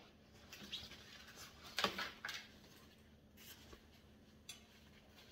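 A few light, scattered clicks and knocks with faint rustling, the loudest about two seconds in: clothes hangers and laundry handled on a metal drying rack.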